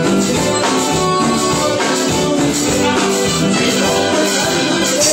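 Live band playing Latin dance music, with drum kit and cymbals and keyboard over a steady beat.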